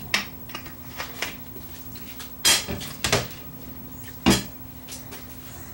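Scattered short clicks and knocks of small objects being handled and set down on a workbench, about ten in all, the loudest about two and a half and four and a quarter seconds in, over a faint steady hum.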